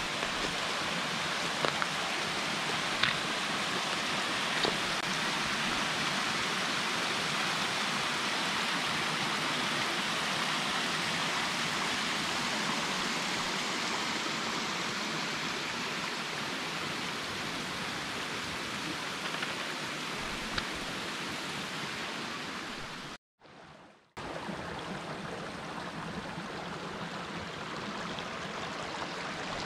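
Small waterfall cascading over rocks into a shallow creek: a steady rush of running water. It drops out for about a second a little over two-thirds of the way through, then the creek's flow resumes slightly quieter.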